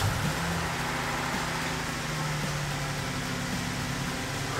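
2013 Jeep Wrangler's 3.6-litre Pentastar V6 idling steadily just after being started, its idle pitch dropping a little near the end.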